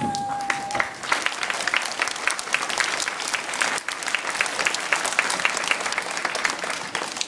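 Audience applauding, many hands clapping densely, the clapping swelling about a second in and continuing steadily. A brief held high note sounds at the very start.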